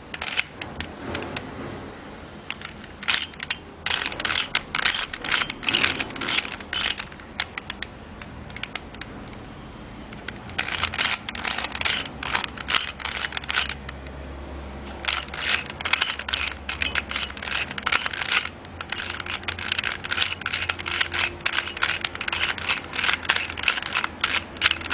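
A plastic 3x3x3 Rubik's Cube being turned by hand, its layers clicking and clacking in bursts of quick turns with short pauses between them, as in the last stage of a beginner-method solve.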